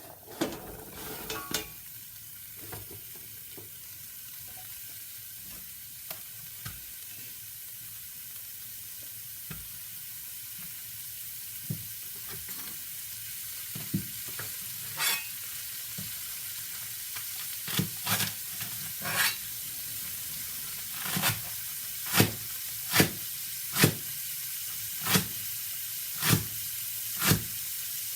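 Food sizzling in a frying pan, a steady hiss that slowly grows louder as the pan heats. In the second half there are sharp knocks, about one a second.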